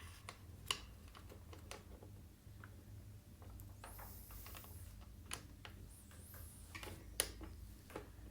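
Faint, irregular small clicks and taps of screws and a hand tool being worked into an exercise bike's plastic computer console, with two brief faint high squeaks in the middle.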